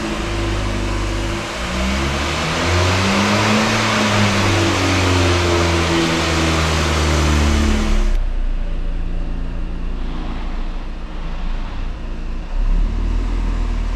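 An engine running and revving, its pitch slowly rising and falling over a steady hiss, cutting off abruptly about eight seconds in. A quieter, lower hum follows.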